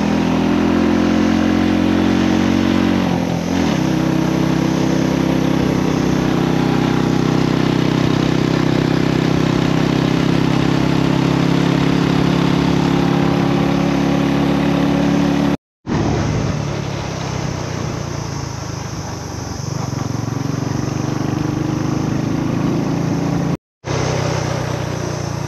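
Honda Wave 100 step-through motorcycle's small single-cylinder four-stroke engine running under steady throttle on an uphill mountain road, dropping in pitch about three and a half seconds in, over a steady rushing noise. The sound drops out for a moment twice, after about 16 and 24 seconds.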